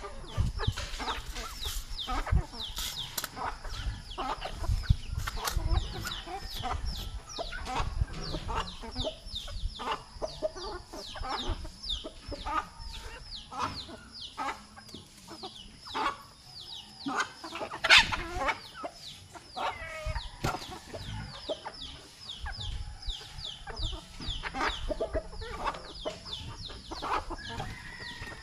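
A flock of chickens feeding: many birds clucking and giving short, high, downward-sliding calls, overlapping almost without pause. Frequent sharp clicks and knocks run through it, with one loud knock about two-thirds of the way in.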